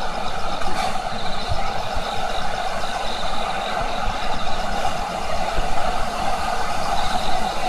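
Firework fountain spraying a tall column of sparks, making a steady rushing noise that holds without a break.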